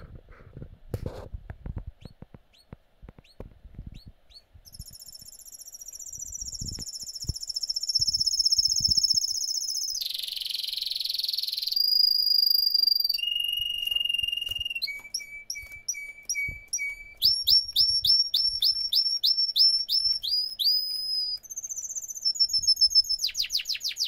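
Canary singing. A few light taps and short chirps lead into a long song of rapid trills and rolls that changes pattern every second or two, with a short harsh rasping phrase about ten seconds in. The song ends in fast runs of repeated down-slurred notes, which are the loudest part.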